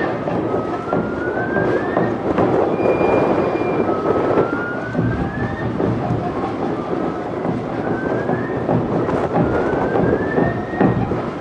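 Awa odori festival music: bamboo flutes playing phrases that slide upward again and again, over dense drumming with sharp strikes.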